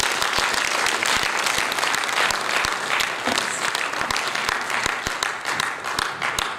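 Audience applauding steadily in a large hall, dense clapping that starts just after a speech ends and fades as the speaker leaves the lectern.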